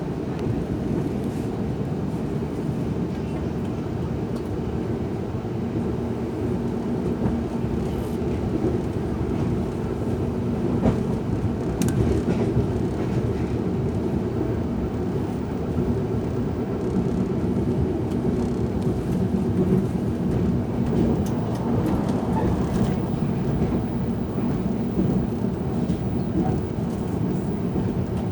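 Passenger train running, heard from inside a coach: a steady low rumble of wheels on rail, with a few sharp clicks.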